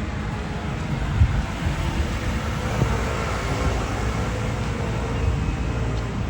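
Steady outdoor city background: traffic rumble mixed with wind buffeting the microphone.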